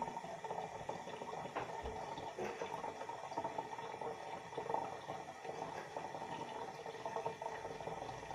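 Faint running water, steady throughout, with a few light clicks.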